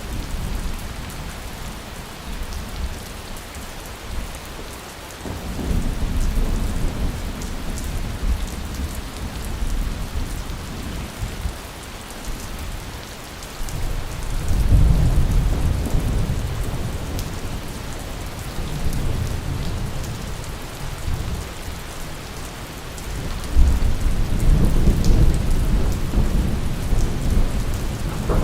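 Steady heavy rain with rolling thunder rumbling low three times: about five seconds in, again around fourteen seconds, and a longer rumble from about twenty-three seconds on.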